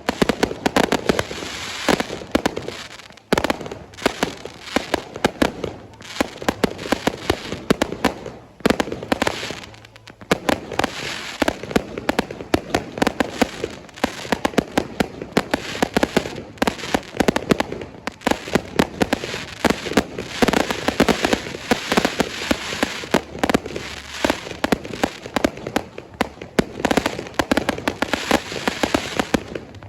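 Fireworks going off in a dense, continuous barrage of rapid cracks and bangs, many a second, easing only briefly a few times.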